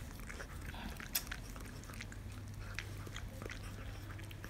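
Pomeranian mother dog licking and nibbling her newborn puppy clean: a run of small wet clicks and smacks from her mouth, with one sharper click about a second in.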